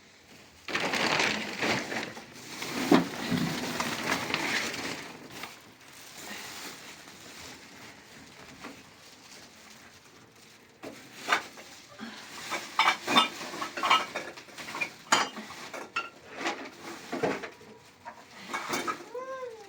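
A few seconds of rustling noise, then after a quieter stretch a long run of short, sharp clicks and knocks, like household things being handled and set down.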